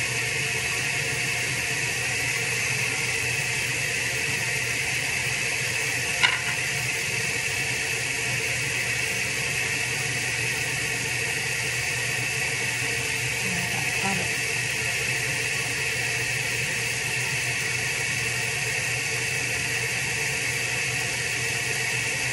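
Steady hiss with a low hum underneath, unchanging throughout, and one sharp click about six seconds in.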